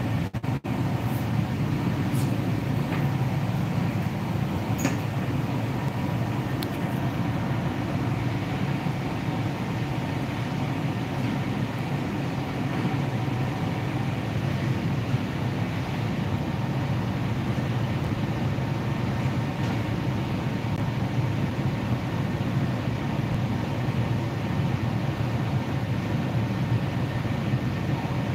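Steady low machinery drone with a faint steady hum above it, unbroken throughout, with a few faint ticks in the first several seconds.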